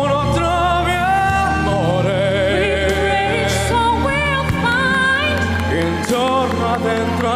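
Singing into microphones over instrumental accompaniment: a slow song with long, wavering held notes.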